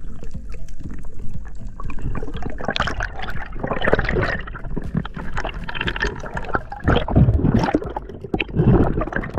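Water gurgling and churning around an underwater camera as a skin diver swims, under a steady low rumble, with several louder irregular surges of bubbling noise, the strongest about three seconds in and again near the end.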